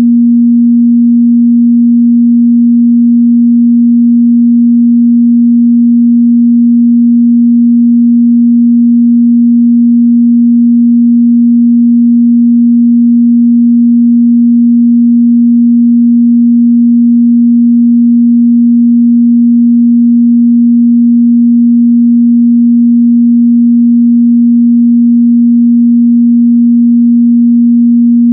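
A continuous 237 Hz sine-wave test tone, one steady pure pitch at a constant loud level, used to check a speaker's or headphones' mid-bass response.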